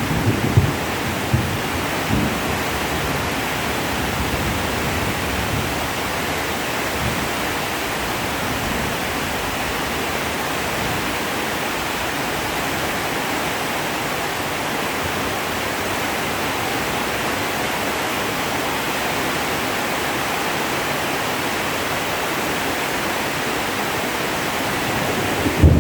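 Heavy rain falling steadily in an even hiss, with a low rumble of thunder fading out over the first two seconds.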